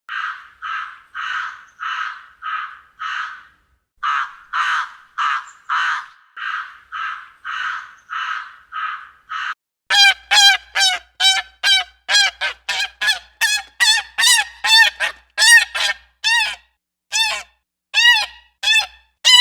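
Repeated animal calls: first a run of rough, noisy calls about two a second, then from about halfway a louder, faster series of clear pitched calls, each rising and falling in pitch.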